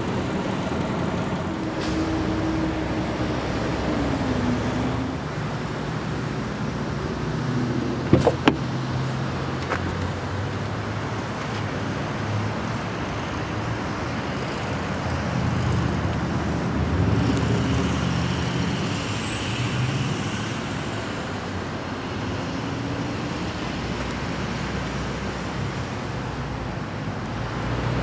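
Steady outdoor road-traffic noise, with vehicles passing and fading. About eight seconds in come two sharp clicks close together, and another a little later.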